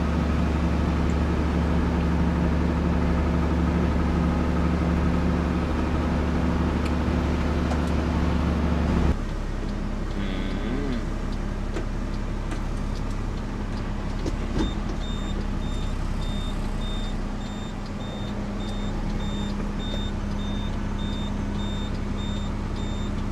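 Truck engine running steadily while driving. About nine seconds in, its low hum drops suddenly and the engine runs quieter. From about fifteen seconds a thin, high electronic beep tone sounds over it.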